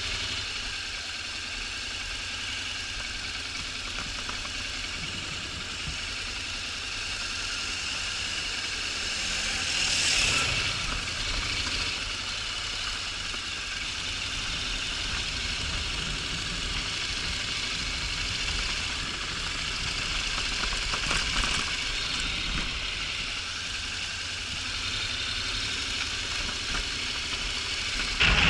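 Honda NC750X DCT's parallel-twin engine running at low, steady revs, with a brief louder swell about a third of the way in.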